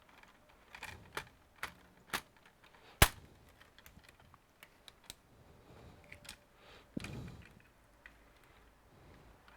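Scattered clicks and taps of hard plastic laptop parts being handled. The sharpest click comes about three seconds in, and a duller knock follows about seven seconds in.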